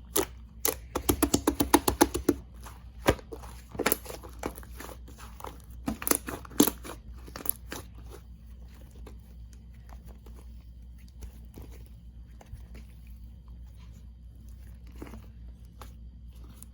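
Slime being squeezed and poked by hand, giving crackling, popping clicks. They come thick and fast for the first eight seconds or so, then thin out to occasional faint pops.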